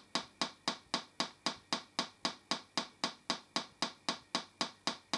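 Speaker on a TPA3122D2 Class D amplifier board giving an even run of pops, about four a second: the amplifier failing to start up after power-on. The owner suspects a bad solder joint or the IC going into shutdown.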